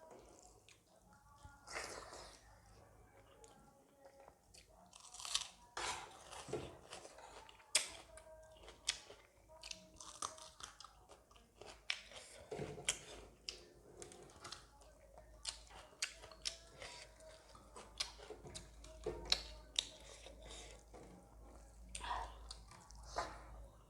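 Close-miked chewing of a dal bhat meal with buff sukuti curry: wet mouth sounds broken by frequent short, sharp crunches and clicks.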